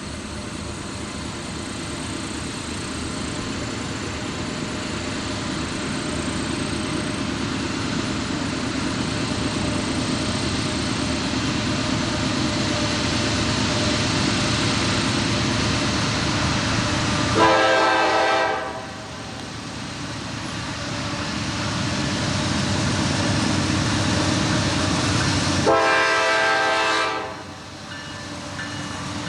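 A train approaching, its rumble and rail noise building steadily, with two long blasts of a multi-note locomotive horn, the first about two-thirds of the way through and the second near the end.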